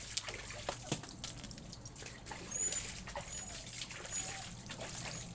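Water splashing and dripping in a plastic basin as a soaked puppy is lifted out and lowered during a bath, with water streaming off its coat and slopping over the rim in irregular splashes and drips.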